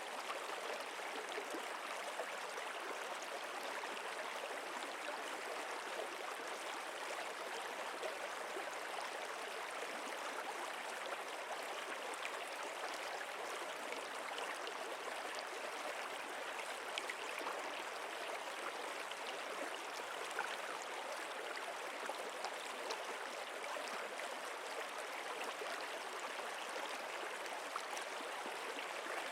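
Stream water flowing and babbling in a steady, even rush with no letup.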